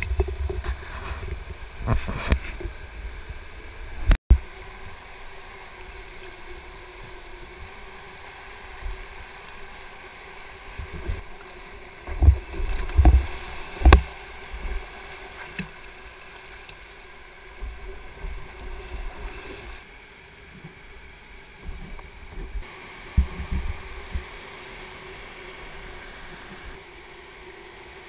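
Steady rush of whitewater from a shallow rocky rapid heard from a kayak, broken by irregular low thumps and knocks, most of them bunched about halfway through. There is a sharp click with a brief dropout about four seconds in.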